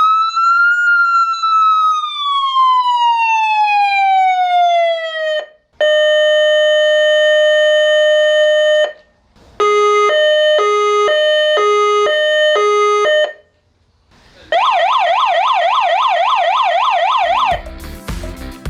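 Alarm horn of an explosion-proof signal stack light (Larson EPL-TL-1X10W-C-DF-PA) sounding through its selectable tones one after another: a slow rising and falling siren sweep, a steady tone, an alternating two-tone signal, then a fast warble. Music comes in near the end.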